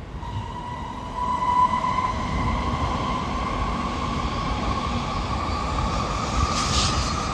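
Shinkansen bullet train accelerating: the electric traction motors' whine climbs slowly in pitch over the rumble of the train running on the track, with a brief hiss near the end.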